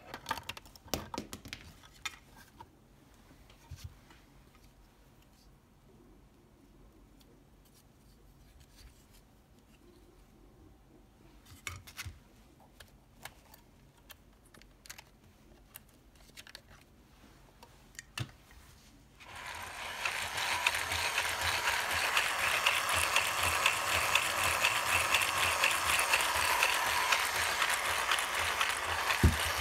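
Scattered light clicks and taps of plastic parts being handled on a 3D-printed Subaru EJ20 engine model; then, about two-thirds of the way in, its electric drive motor starts and the printed engine turns over with a steady mechanical whir and rapid ticking of its plastic gears, pulleys and belts.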